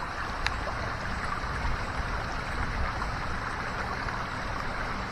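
Swollen floodwater creek rushing steadily, with one faint tick about half a second in.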